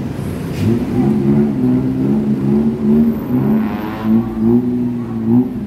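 Busy city street traffic, with motorbike and car engines pulling away and accelerating through an intersection. One engine revs up about four seconds in.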